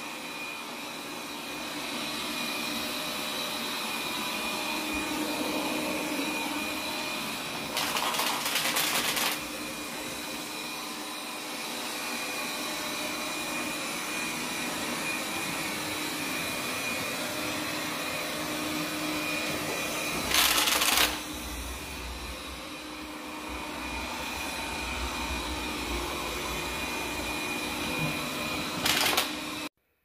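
Lambot A1 robot vacuum running steadily on a hardwood floor, its suction fan and brushes giving a constant whine at a few fixed pitches over a hiss. The sound gets louder for about a second three times: near the first third, around two-thirds through, and near the end.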